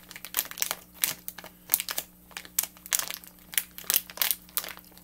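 Plastic packaging of FoodSaver vacuum-seal bags crinkling and crackling as it is handled, in irregular spurts of short crackles.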